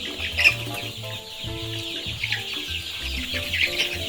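A flock of seven-week-old chickens calling all at once, a dense high chattering of many overlapping short calls. Under it runs background music with steady low notes.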